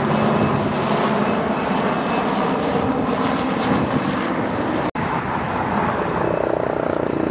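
Steady engine noise of an aircraft in flight, broken by a very short dropout about five seconds in.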